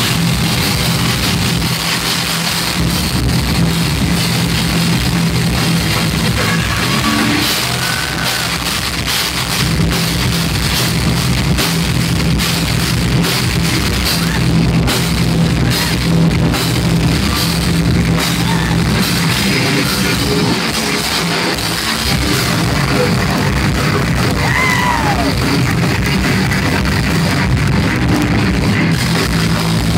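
Thrash metal band playing live and loud: distorted electric guitars over a drum kit, recorded from close to the stage.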